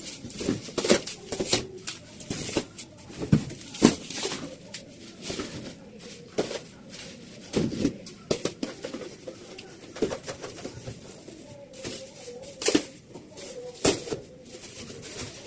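Irregular knocks, clicks and clatter of household items, such as containers, shelves and drawers, being handled and set down.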